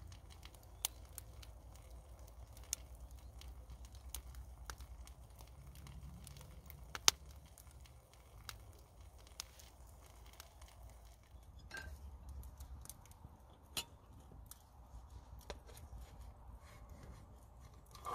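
Small wood cooking fire crackling under a grill, with irregular sharp pops and one louder snap about seven seconds in.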